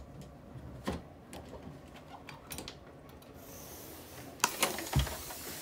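A few light clicks from a doorknob and door latch being worked. Then, about three and a half seconds in, an aerosol spray can starts a long, steady hiss, with a couple of sharp knocks and a thump against the door while it sprays.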